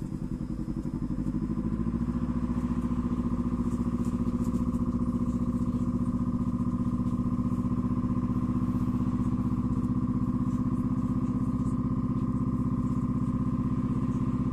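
A motor running steadily nearby with a fast, even throbbing beat, settling into a steady run about a second in after slower pulses.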